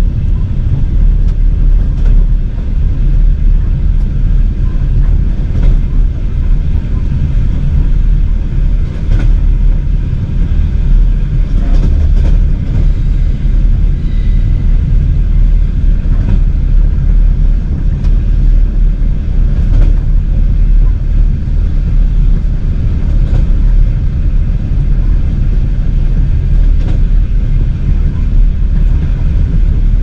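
Steady low rumble of a moving vehicle, with no clear breaks.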